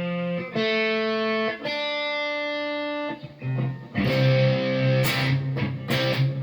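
Electric guitar with a GFS humbucker in the neck position, played through a Marshall Origin amp with a little gain. It holds about three ringing notes or chords of around a second each, then from about four seconds in strums rhythmic chords with a grittier, more distorted edge.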